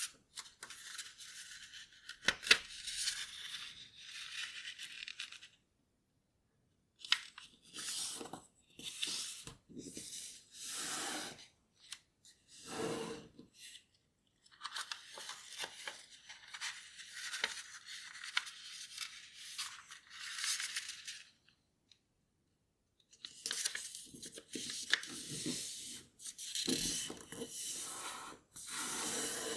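Sheet of origami paper being folded and creased by hand: crisp rustling and scraping as fingers slide along the folds, in spells broken by a few short silences. There is one sharp click about two and a half seconds in.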